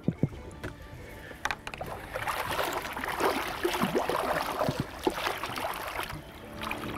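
Water splashing and churning as a bull redfish, held by the tail at the boat's side, thrashes and kicks away on release. A few sharp knocks come in the first two seconds, and the splashing grows louder from about two seconds in, easing near the end.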